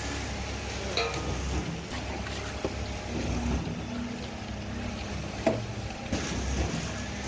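A machine engine running steadily with a low rumble, with a few sharp knocks: about a second in and again near the end.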